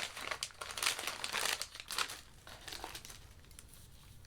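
Packaging crinkling and rustling as items are handled and pulled from a gift box, busiest in the first couple of seconds, then dying down to faint handling.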